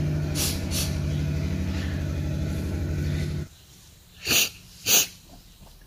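A steady low hum stops abruptly about three and a half seconds in. Then come two short, sharp breaths from a person, about half a second apart.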